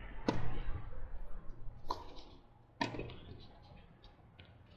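Tennis ball struck by rackets in a rally. A serve lands about a third of a second in, then come two more sharp hits about a second and a half and a second apart, followed by fainter ticks.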